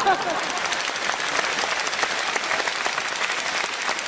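Large audience applauding steadily, with a few cheers fading out at the start.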